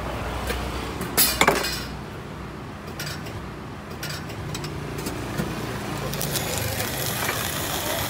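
Metal coffee utensils being handled, with a few sharp clinks and knocks about a second in and lighter ticks after, over a steady street background.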